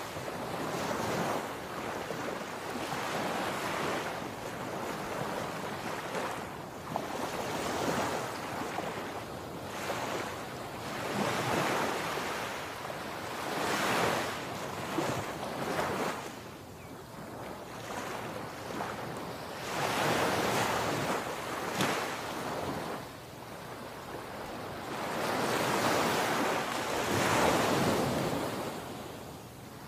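Sea surf breaking on a sandy beach, its steady rush swelling and fading every few seconds as each wave comes in.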